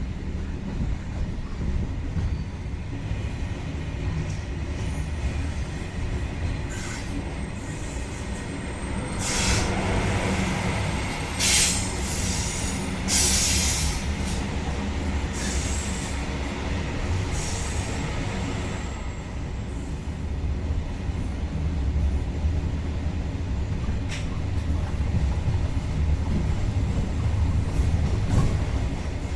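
InterCity train pulling out with a steady low rumble of wheels on track. Several brief, high-pitched wheel squeals come in a cluster about a third of the way in.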